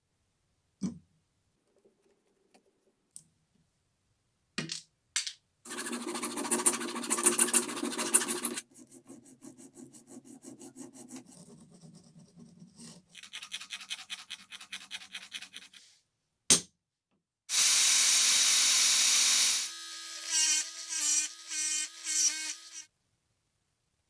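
Hand file rasping across a small metal buckle part clamped in a vise, in several bursts of filing with short silent breaks between them. The loudest bursts come about a quarter of the way in and again about three quarters of the way in. A few single sharp clicks fall between the bursts.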